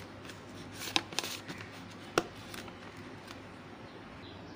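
Hands packing and placing plastic food containers with tissue paper: soft rustling and a few light clicks and knocks, the sharpest about one and two seconds in.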